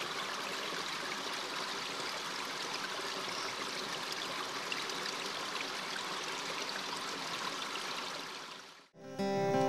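Steady rushing of a river flowing over rocky shoals, fading out about nine seconds in as acoustic guitar music begins.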